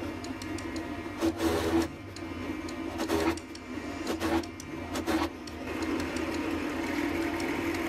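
Bench drill press motor running steadily, with four short, louder bursts as the bit bores holes through a small wooden block.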